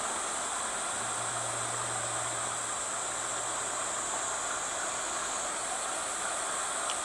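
Steady rushing hiss, with a faint low hum joining it for a few seconds.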